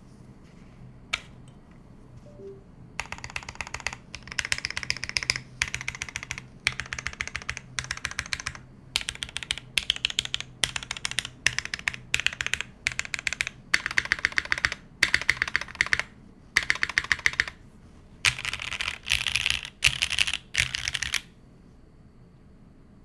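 Typing on a mechanical keyboard with lubed SP Star Meteor White linear switches on an aluminium plate, in a DNworks DM case with an aluminium top and polycarbonate bottom, fitted with GMK keycaps. The typing comes in quick runs of keystrokes about a second long with short pauses between them. It starts about three seconds in after a lone keystroke and stops shortly before the end.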